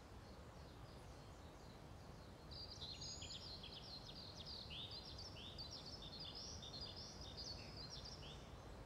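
Faint birdsong: a busy run of short, high chirps and twitters that begins a couple of seconds in and stops shortly before the end, over a steady low outdoor ambience.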